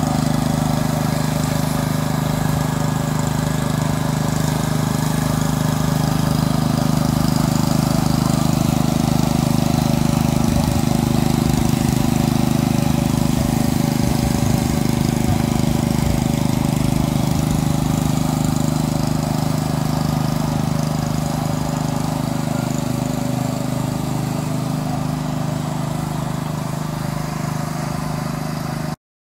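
Small portable air compressor, engine-driven, running steadily at a constant speed as it supplies air to a spray gun.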